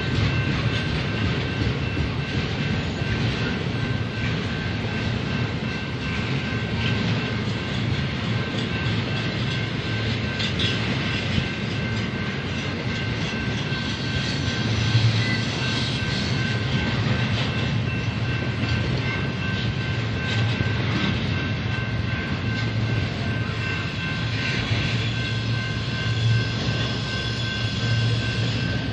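Double-stack container freight train rolling past with a steady rumble of wheels on rail, with clicking over rail joints and a thin steady high ringing tone over it.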